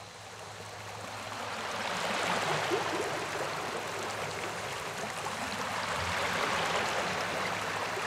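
A steady rush of churning water that fades in over the first two seconds and then holds.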